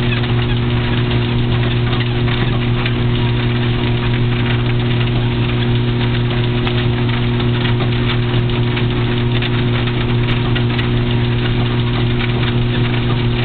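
Motorized treadmill running at a walking speed of 3.0 mph, its motor and belt giving a steady loud hum.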